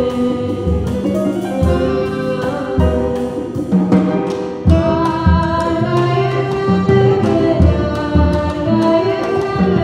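A live Latin-jazz band: a woman sings a Slovenian folk melody, backed by piano, double bass, electric guitar and drums keeping a steady beat.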